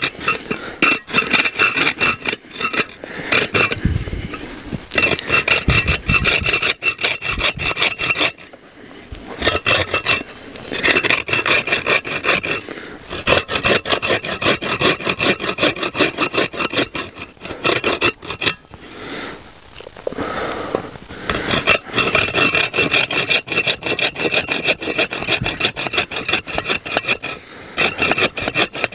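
Hand saw cutting through wood with quick back-and-forth rasping strokes, in bouts broken by a couple of short pauses.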